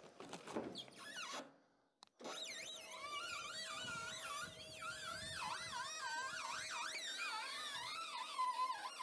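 Electric trailer winch running under load with a steady whine, and a loud wavering squeal over it that rises and falls in pitch over and over, like a siren, from about two seconds in.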